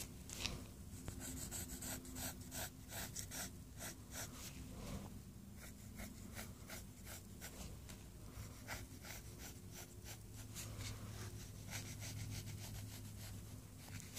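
Pencil drawing on paper: runs of short, scratchy strokes, several a second, with brief pauses between the runs, over a faint steady low hum.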